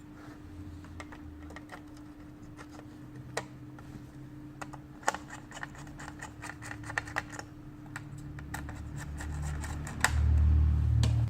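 Scattered light clicks and taps from a laptop being handled, over a steady low hum. A louder low rumble comes in near the end, and then the sound cuts off.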